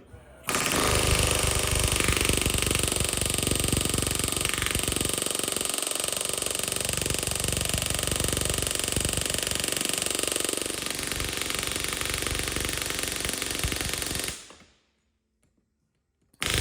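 Handheld pneumatic air tool running on shop air, a steady high whine over a fast rattle, which winds down about 14 seconds in; a second run starts right at the end.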